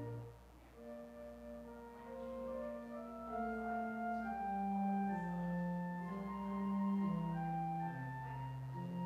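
Church organ playing slow, sustained chords, the notes held and changing one after another in several voices.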